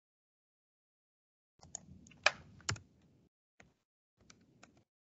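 Computer keyboard typing: a short, uneven run of keystrokes beginning about a second and a half in, with two louder key clicks near the middle.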